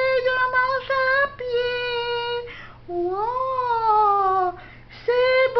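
A high-pitched voice holding long, wavering notes without words, like a child singing or wailing: three drawn-out notes, the middle one sliding downward, with short breaks between them.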